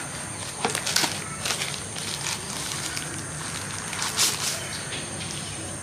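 Packaging being handled during an unboxing: scattered soft clicks and rustles, with a couple of sharper clicks about four seconds in.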